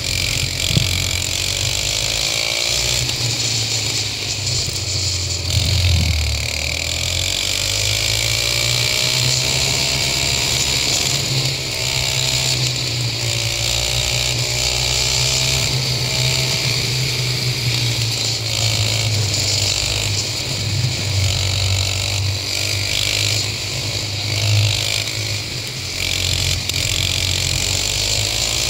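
Go-kart engine running at speed on a track, its pitch falling and rising again every few seconds as the kart slows into corners and accelerates out, over a steady hiss.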